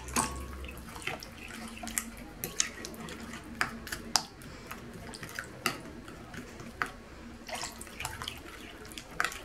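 Spoon stirring a wet chermoula marinade in a glass bowl: liquid sloshing and squelching, with irregular light clinks of the spoon against the glass, a dozen or so.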